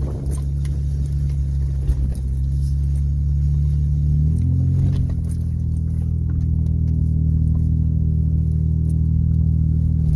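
The 1997 Mitsubishi Montero SR's 3.5-litre V6 running steadily at low revs while crawling off-road. It revs up briefly about halfway through and settles back, with light clicks and rattles over it.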